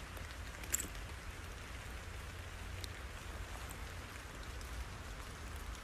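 Steady outdoor background hiss over a low rumble, with a few faint sharp ticks, the clearest about three-quarters of a second in.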